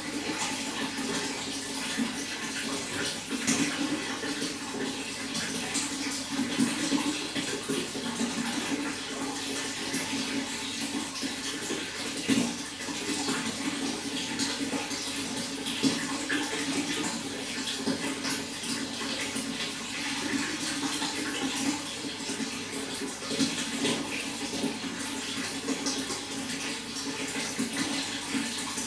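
Running water flowing steadily, a continuous splashing with small irregular surges in loudness.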